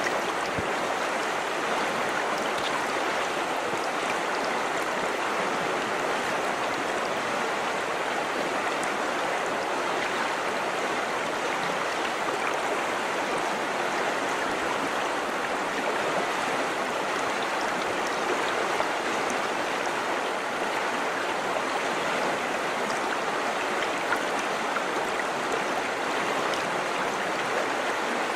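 A river flowing over rocks, a steady rushing babble with a few small splashes.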